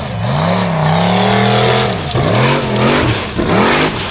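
Formula offroad buggy's engine revving hard while climbing a steep gravel slope: held high for about two seconds, then revved up and down several times in quick succession.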